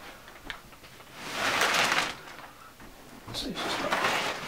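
Rustling and brushing as a freshly unpacked foam mattress and its plastic wrapping are handled, in two swells about a second long each.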